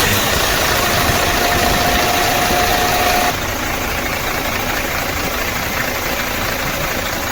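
Mercedes-Benz Actros truck's diesel engine running just after it has started on a newly fitted starter motor. A steady whine over the engine stops about three seconds in, the sound drops a little, and the engine keeps idling.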